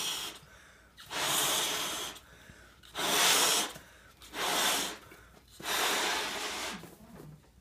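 Latex balloon being blown up by mouth: about four long, breathy puffs blown into it, with quieter breaths drawn in between.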